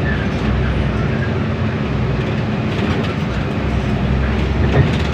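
Inside a moving city bus: the bus engine runs with a steady low hum under road noise and light cabin rattles, with a single short clunk near the end.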